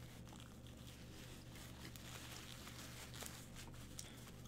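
A person quietly biting and chewing a chicken club sandwich, faint, with soft mouth clicks every so often over a low steady hum.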